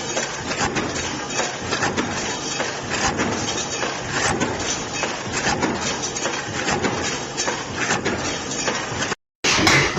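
Forging-shop noise: machinery running with frequent irregular metal clanks and knocks. The sound cuts out for a moment about nine seconds in, then resumes.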